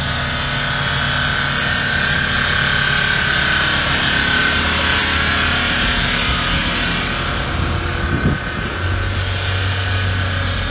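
Motor vehicles running on a snow-covered road: a steady low engine hum with a continuous hiss and a faint high whine through the first half. The low hum grows stronger near the end as the SUV pulls away.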